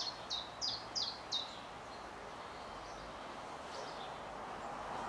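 A small songbird giving a quick series of high, downward-sliding notes, about three a second, that stops after about a second and a half, with one fainter call a little later, over steady outdoor background noise.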